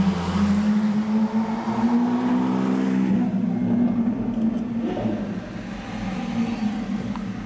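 Car engine heard from inside the cabin as the car pulls away, its note rising over the first couple of seconds and then holding steady as it drives on.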